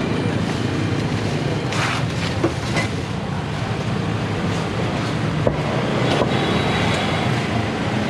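Steady low background rumble of street and traffic noise, with a few brief knocks and clinks from the stall.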